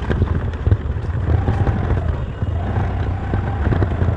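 Scooter riding along a road: a steady low rumble of its engine and the ride, with wind on the microphone.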